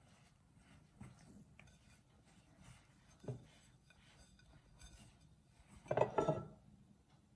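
Hands kneading besan (gram-flour) dough in a glass bowl: quiet pressing and squishing, with a few soft knocks against the glass, the loudest about six seconds in.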